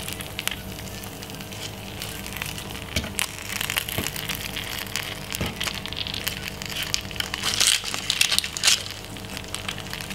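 Metal fork and spoon turning roast chicken thighs in a glass baking dish: a few sharp clicks against the glass and irregular wet crackling in the hot pan juices.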